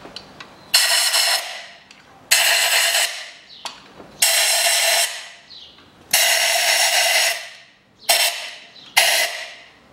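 Compressed-air blow gun fired in six short blasts of hiss, each half a second to a second long and starting abruptly, blowing dirt out of the spark plug wells before the plugs are removed.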